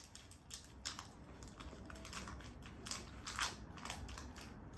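Faint, irregular clicks and crackles, a little louder about one second and three and a half seconds in.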